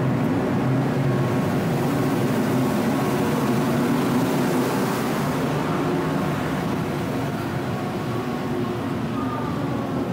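Steady mechanical hum of a moored ship's deck machinery, running evenly with a low droning tone over a broad rush.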